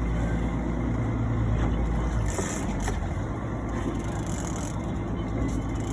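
Motorboat engine running, its low hum easing off about two seconds in, over the rush of wind and water.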